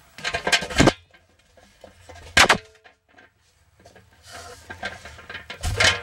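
Three loud bursts of clattering knocks with quiet gaps between, from a plastic-wrapped camera being bumped and moved about inside a central vacuum's plastic dirt canister.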